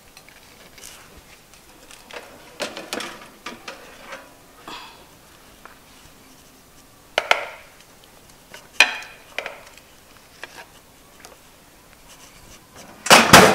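Metal baking pan and oven rack clattering and scraping as a foil-covered pan is taken out of a toaster oven and set down on a counter, with sharp knocks about seven and nine seconds in and a loud clatter near the end.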